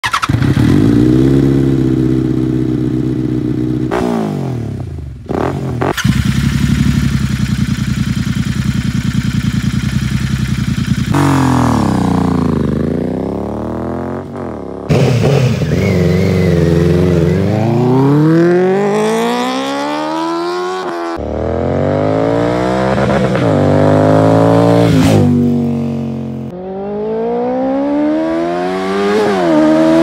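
Benelli 600i inline-four motorcycle with an aftermarket exhaust revving in a series of short clips that cut abruptly from one to the next. In some clips the revs are held high and steady; in others they rise and fall repeatedly.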